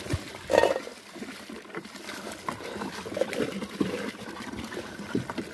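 Water sloshing and splashing in a plastic tub as a rottweiler moves about in it, with a louder splash about half a second in.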